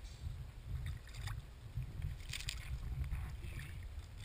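Low, uneven wind rumble on the microphone at the water's edge, with a few brief faint hisses over it.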